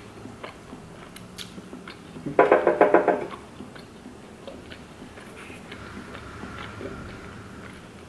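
Close-up mouth sounds of a person chewing a mouthful of burrito, with faint scattered wet clicks. A short pitched sound about two and a half seconds in is the loudest thing heard.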